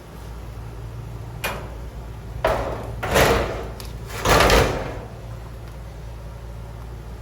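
Steel firebox door of a wood-fired offset smoker pit being worked shut, metal scraping on metal in three strokes, the last two longer and louder, over a steady low hum.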